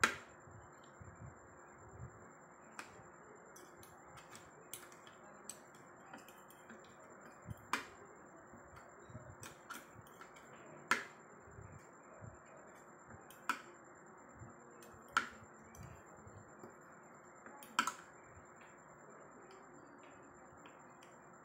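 Metal spoon and fork clinking and scraping against a china plate of rice, with a sharp clink every one to three seconds over a steady low hiss.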